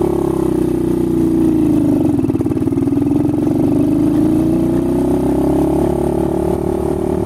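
Honda XR100 four-stroke single-cylinder engine on a converted dirt bike, pulling away from a stop in top gear. The revs sag to a low, labouring point about two seconds in, then climb slowly and steadily as the bike gathers speed.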